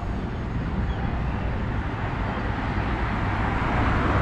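Wind buffeting the microphone outdoors over a steady rush of road traffic; the rushing noise swells louder toward the end.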